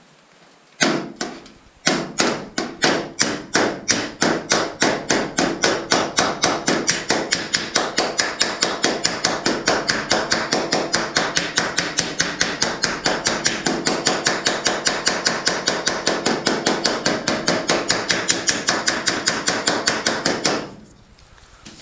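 Flat-faced body hammer striking an aluminum canoe hull over a curved dolly held on the inside, flattening out a high spot left by the dolly. After two opening blows, a fast, even run of light strikes at about five a second starts about two seconds in, the thin hull ringing under them, and stops about a second before the end.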